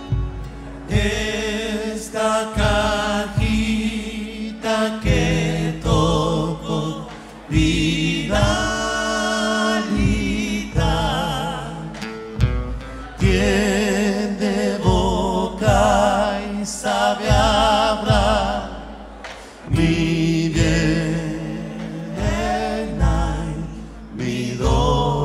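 Live Argentine folk music: several voices singing together in harmony, with acoustic guitar accompaniment and a steady beat on a bombo legüero drum.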